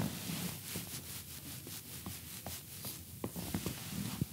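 Faint rustling and scattered small clicks as two seated people reach across and shake hands, over quiet room tone.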